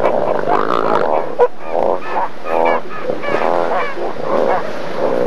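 Southern elephant seals in a breeding harem calling over one another: many overlapping drawn-out calls without a break, with some higher calls wavering up and down in pitch in the middle.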